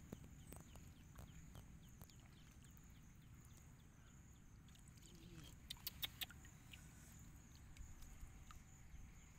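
Near silence: faint outdoor ambience with a low rumble, a steady faint high hiss and a few soft ticks about six seconds in.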